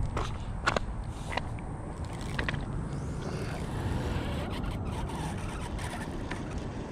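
Handling noise of a baitcasting reel being worked over by hand to clear a near-tangle in the line: a few sharp clicks and scrapes in the first couple of seconds, then a steady low rumble.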